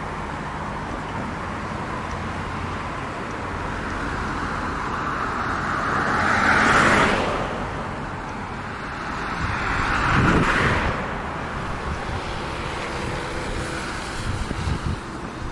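Road traffic on a wide street, with two cars passing close by: one about seven seconds in and another about ten seconds in, each swelling up and fading away.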